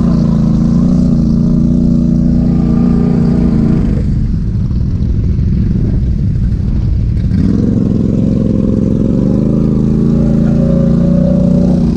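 ATV engine running hard at high revs in mud. It eases off about four seconds in and revs back up a few seconds later, holding high as the bottomed-out machine works to pull free.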